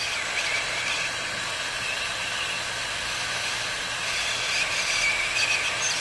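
X-Tronic 5000 series hot-air heat gun blowing steadily onto a phone circuit board, heating the charging port's solder to melt it for desoldering.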